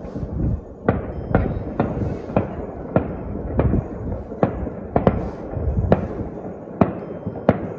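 New Year's fireworks going off in a steady, irregular run of sharp bangs, one or two a second, over a low rumble.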